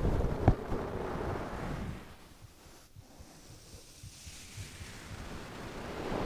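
A sleeping person's slow breathing close to the microphone: a breath that fades out, a lull, then the next breath swelling in.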